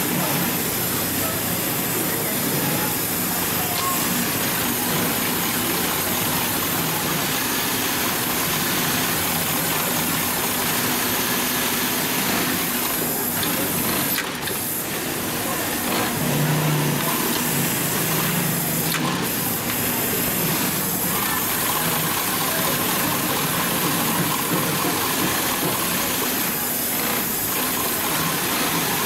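Heavy-duty post-bed double-needle lockstitch sewing machine running steadily as it stitches thick leather: a constant mechanical whir, with a short dip about halfway through.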